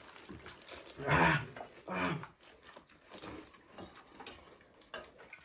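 People chewing mouthfuls of pani puri, with faint crunching and mouth sounds. Two short muffled voice sounds come about a second and two seconds in.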